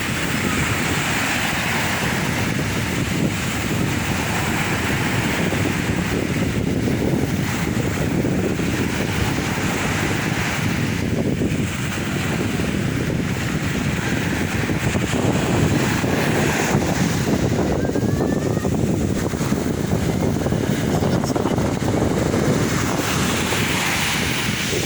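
Sea waves washing onto the shore in a steady rush that swells and eases, with wind buffeting the microphone.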